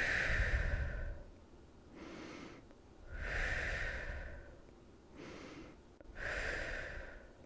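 A woman breathing slowly and deeply in a demonstration of diaphragmatic belly breathing. Three louder breaths alternate with two softer ones, about one full breath every three seconds.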